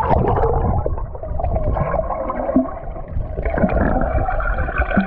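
Muffled water gurgling and sloshing over a heavy low rumble, with the high end cut off and a few short squeaky tones.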